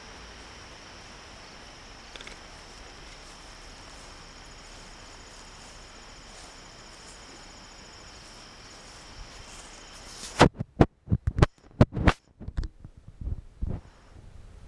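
Steady high-pitched trilling of evening insects. About ten seconds in it gives way to a run of loud knocks and bumps from the camera microphone being handled.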